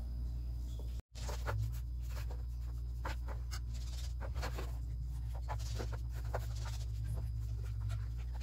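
Metal spoon spreading thick, creamy chocolate brigadeiro over sponge cake in an aluminium baking pan: a run of short, soft scrapes and light clicks of the spoon, over a steady low hum. The sound drops out briefly about a second in.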